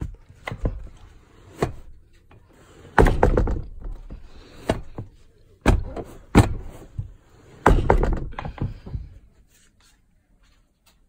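Rustling and a run of knocks and thumps from hands handling a train couchette bunk, its sheet and its fold-down armrest, stopping about nine seconds in.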